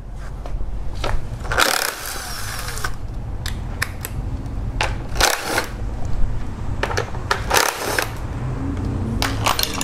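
Cordless electric screwdriver with a socket running in stretches, backing out the 8 mm screws of a plastic engine cover. It stops briefly between screws, with short scraping noises at the breaks.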